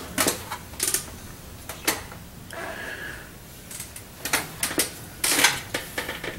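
Irregular clicks, taps and short rustles of hand work on the engine: small parts and tools being handled and set down, with a brief squeak about halfway through.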